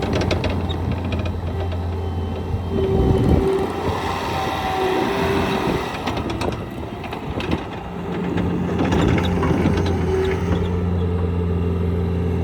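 Bobcat T66 compact track loader working: its diesel engine runs steadily under a whine that comes and goes. Its tracks and undercarriage clatter with scattered knocks and clanks. The engine note shifts about eight seconds in.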